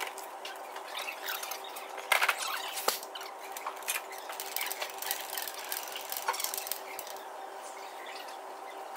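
Hand work under a car on a lift: scattered knocks and clatter of panels and tools, loudest about two to three seconds in, over a steady background hum.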